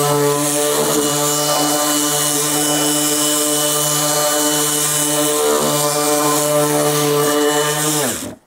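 Bosch 18V brushless 125 mm random orbital sander running at full speed (setting 6) with an 80-grit pad on hardwood, a steady whine with hiss. Near the end it is switched off and winds down quickly, falling in pitch.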